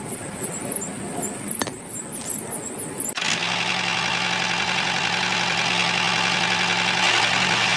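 A small engine running, rough and uneven at first, then louder and steady with a constant low hum from about three seconds in.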